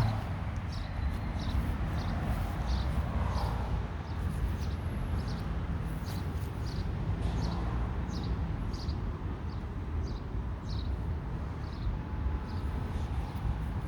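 Outdoor background: a steady low rumble with a short high chirp repeating evenly, a little under two a second.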